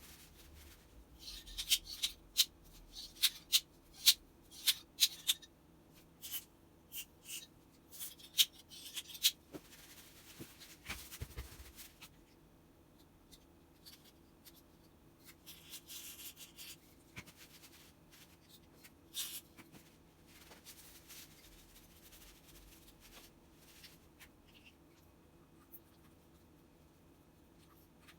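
Hand-work sounds: a run of quick, sharp clicks and taps of small parts being handled for the first ten seconds or so, then soft rubbing and one more click. No motor runs.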